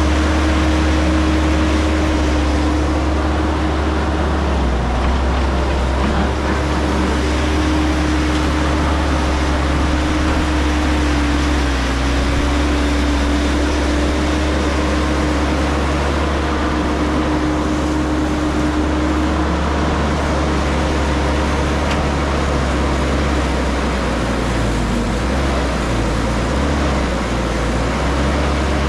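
Caterpillar 312 hydraulic excavator's diesel engine running steadily under working load, with a steady whine riding over the low engine rumble as the machine digs and pushes brush.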